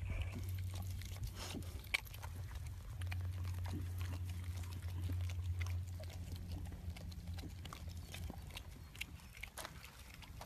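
Dog and cow licking each other's faces: irregular wet licking and slurping clicks of tongues and muzzles, over a steady low hum.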